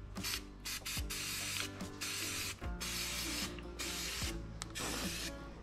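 Aerosol can of Rust-Oleum oil-based enamel spray paint hissing in a run of short bursts with brief gaps between them, sealing the inside of freshly cut holes.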